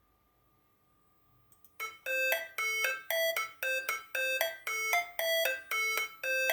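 Opening of a rap song: a bell-like synthesizer melody of short, ringing notes, about two a second, starting roughly two seconds in after near silence.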